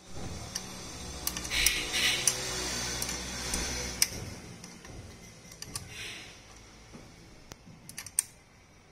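Ring spanner working the mounting bolt of a motorcycle's stock engine guard loose: scattered light metal clicks and ticks with a couple of short scrapes, the loudest about two seconds in.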